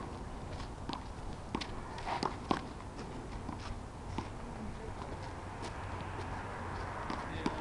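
Footsteps and sneaker scuffs on an asphalt handball court, with scattered sharp slaps and knocks, the loudest a pair about two seconds in, over a steady low rumble.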